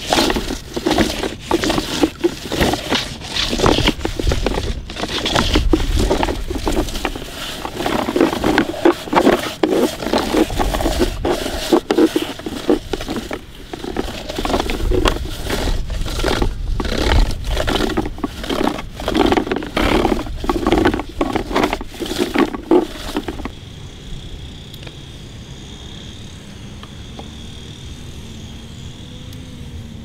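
Plastic toy sand roller scraping and crunching over damp sand, crushing moulded sand shapes: a loud, irregular gritty rattle. It stops about three-quarters of the way through, leaving a quieter steady background with a faint high hum.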